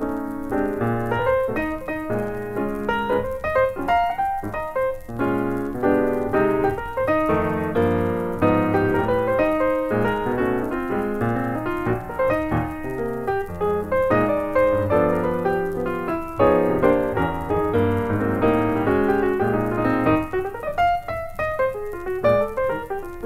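Piano music: a continuous run of notes and chords.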